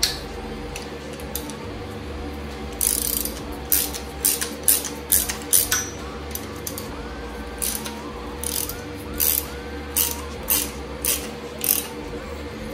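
Hand ratchet clicking in short repeated bursts, about two or three a second, as bolts are backed out of an engine's water pump.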